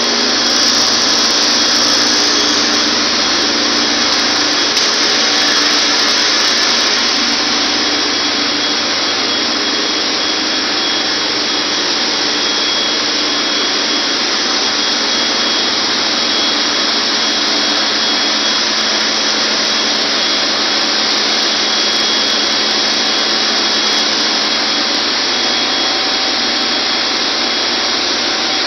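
Loud steady running noise of a chemical tanker's engine room machinery, with a thin steady high whine through it.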